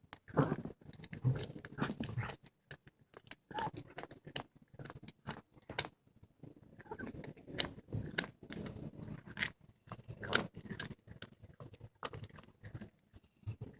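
A cat chewing and crunching on a squirrel it has caught: irregular crunches and clicks.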